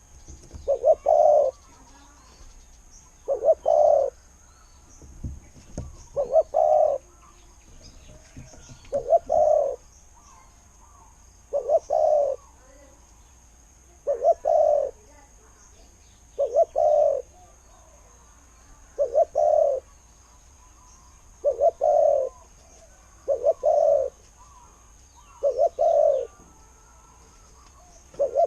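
Spotted dove cooing, a decoy bird calling to lure wild doves: a short coo phrase repeated evenly about every two and a half seconds, about a dozen times.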